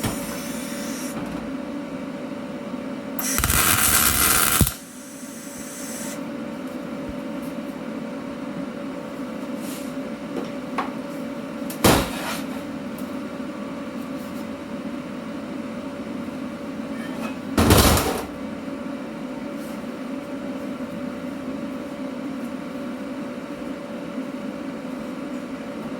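Steady machine hum with a loud burst of hissing noise lasting over a second a few seconds in, then two sharp knocks, one near the middle and one about two-thirds through.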